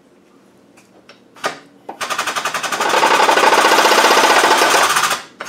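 Shop press running with a rapid, even mechanical rattle as it presses a bearing onto a Land Rover LT77 gearbox shaft. It starts about two seconds in after a few light clicks, swells to full loudness and stops suddenly just before the end.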